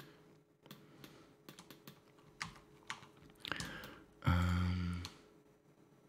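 Computer keyboard and mouse clicks, a few scattered keystrokes, as shortcuts are pressed in 3D software. About four seconds in there is a short, steady low hum lasting under a second, the loudest sound here.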